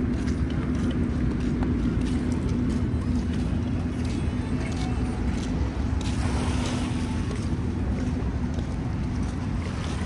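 Wind buffeting the phone's microphone, a steady low rumble with a faint steady hum beneath it and a brief surge of hiss about six and a half seconds in.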